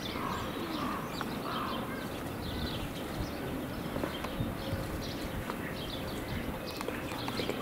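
Small birds chirping in short, repeated calls over a steady low background noise.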